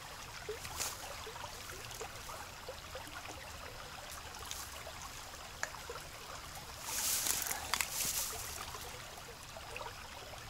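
Creek water trickling steadily, with a brief louder swishing rustle about seven seconds in.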